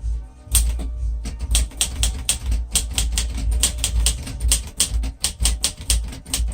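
Underwood 315 manual typewriter being typed on at a steady pace. Sharp key strikes come at about five or six a second, starting about half a second in.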